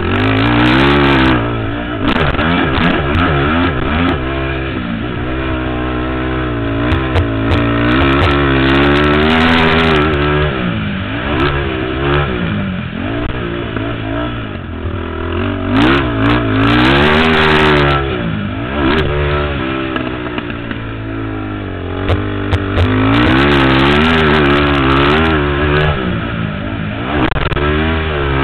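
Sport ATV engine (ML450r) revving hard, its pitch climbing and falling again and again as the throttle is opened and shut while the quad is ridden around a track.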